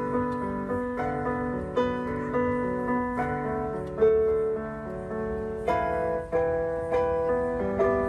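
Grand piano being played: a slow, simple melody of single notes, struck every half second to a second and left to ring, over held lower notes.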